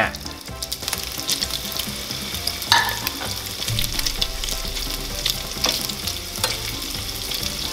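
Raw pork meatballs sizzling and crackling in hot oil in a nonstick frying pan, with a few louder crackles as more meatballs are set into the oil.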